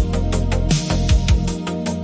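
Synthwave electronic music: a steady drum beat with kick drums and hi-hats under sustained analog-style synthesizer tones.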